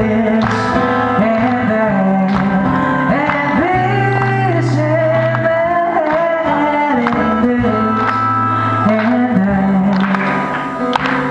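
Man singing a melody live to his own strummed acoustic guitar.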